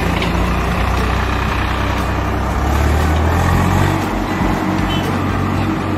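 Diesel tractor engine running as the tractor drives up and passes close by, its low rumble growing loudest about three to four seconds in.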